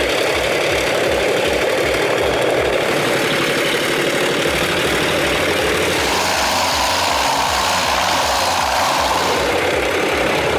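A heavy machine's engine running steadily, with a regular low pulsing throughout and a change in its note about six seconds in.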